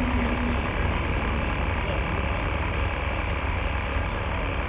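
Steady low rumble of a B-2 Spirit stealth bomber's jet engines as it flies past overhead.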